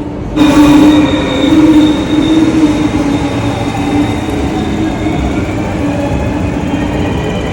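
NS VIRM double-decker electric intercity train running along the platform, with steady squealing tones over the rumble of the train. The sound gets sharply louder about half a second in, then eases off slowly.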